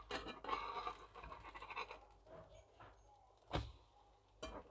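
Slotted spatula scraping under an egg omelette in a non-stick frying pan as it is turned over. Then two sharp knocks about a second apart near the end.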